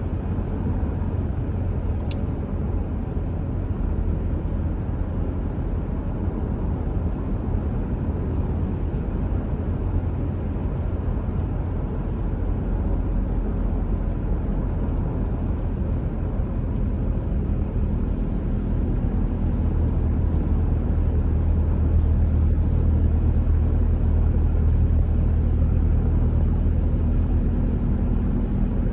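A car driving along a road: steady low rumble of engine and tyres, which grows a little louder about two-thirds of the way through.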